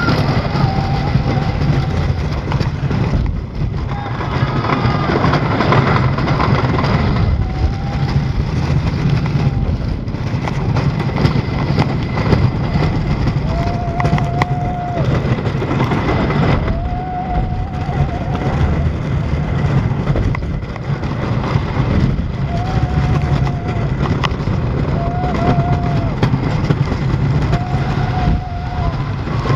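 Roar wooden roller coaster train running the track: a loud, continuous rumble and rattle of the wheels on the wooden track. Short high-pitched squeals of about a second each come and go every few seconds.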